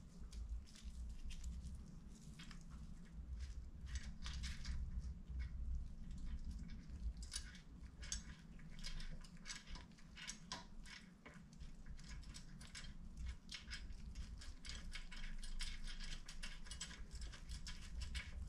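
Quiet, irregular clicking and scraping of small metal parts as gloved hands work the brake pedal onto its pivot bolt on a Zündapp 517 moped frame, with a low rumble underneath.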